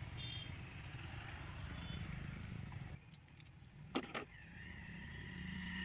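A motor vehicle's engine runs with a low rumble, then fades out about three seconds in. A few sharp clicks follow, and near the end a steady high whine.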